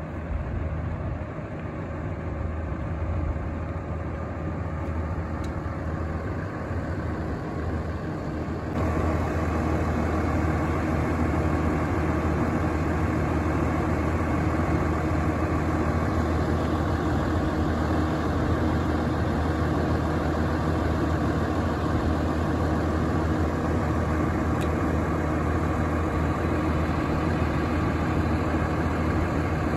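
Asphalt distributor truck's diesel engine idling steadily with an even low hum, louder from about nine seconds in.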